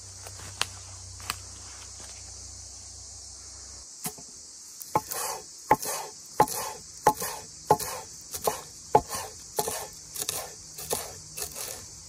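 A knife chopping fresh herbs on a wooden cutting board: a brisk run of sharp chops, about two to three a second, starting about four seconds in. Insects chirr steadily in the background throughout.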